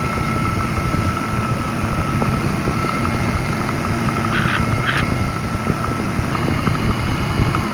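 A motor-driven machine running steadily: a dense low rumble with a constant high whine, and two short bursts of noise about four and a half and five seconds in. It cuts off abruptly at the end.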